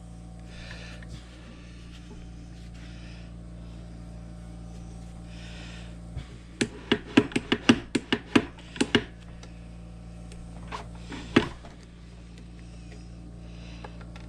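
A quick run of about a dozen sharp metal clicks and taps from about six to nine seconds in, then another one or two a little later, over a steady low hum. These are metal parts of a Framon code key machine being fitted and tried together during reassembly.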